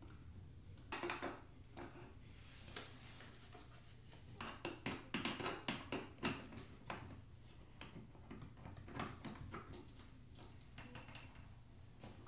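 Faint metal clicks and scrapes from a screwdriver used as a lever to turn a threaded nipple onto the tub spout pipe. The clicks come in clusters, thickest in the middle.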